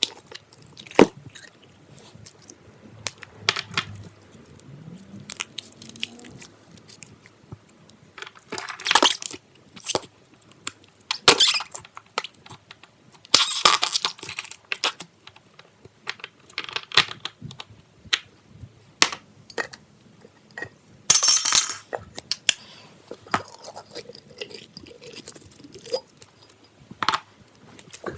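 Slime being squished and poked by hand: irregular crackling pops and squishes, with a few longer crinkly bursts.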